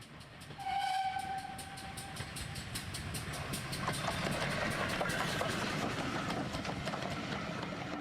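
Steam locomotive whistle, one long blast of about two seconds, then the engine working with regular exhaust chuffs that grow louder.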